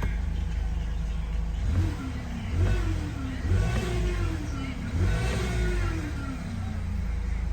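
Hyundai Grand Starex van engine revved in several quick blips, its pitch jumping up each time and then sinking back slowly toward idle near the end. The engine is presented as making an abnormal noise.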